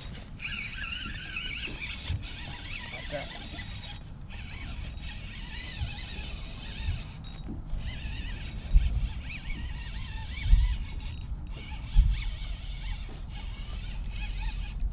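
Spinning reel being cranked steadily on a lure retrieve, its gears giving a squeaky, wavering whir that stops briefly a few times. A few dull low thumps come in the second half.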